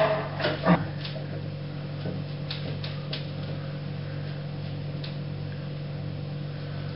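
A few light knocks and taps, the loudest about a second in and fainter ones a few seconds later, as a framed painting is nudged straight against the wall, over a steady low hum.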